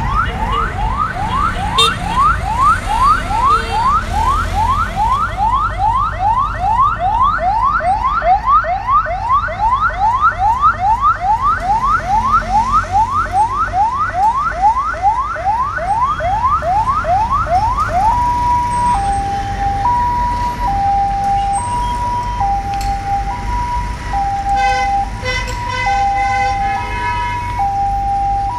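Electronic emergency-vehicle siren in a fast yelp, quick rising sweeps about two or three a second, which switches about two-thirds of the way through to a two-tone hi-lo, alternating between a higher and a lower note about once a second. Near the end another short, pulsing tone joins in.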